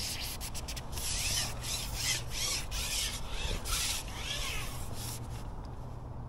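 Carbon match fishing pole being shipped back in, sliding through the angler's hands and over the roller in a run of short rasping strokes, about two a second.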